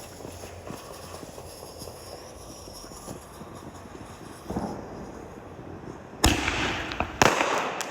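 Fireworks going off: a few faint pops, then two loud bangs about a second apart near the end, each trailing into a crackling hiss.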